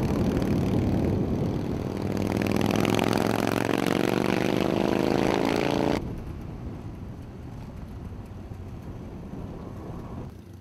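Cruiser motorcycle engine accelerating, its pitch rising steadily for about six seconds. It then cuts abruptly to a quieter, steadier engine sound that fades near the end.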